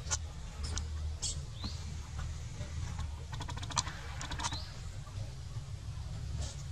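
Light, irregular clicks and taps, with a quick run of them about three and a half seconds in, and a couple of short rising chirps, over a steady low rumble.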